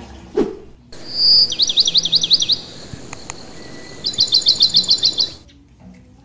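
A songbird calling: a short whistle, then a run of quick rising-and-falling notes, and after a pause a fast series of about ten high chirps. The bird sound starts and stops abruptly, as if cut in, just after a brief whoosh.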